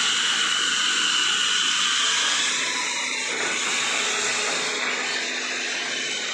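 A workshop machine or power tool running steadily with a continuous rushing hiss.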